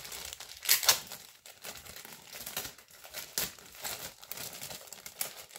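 Plastic packaging crinkling and rustling in the hands in irregular bursts, loudest just under a second in.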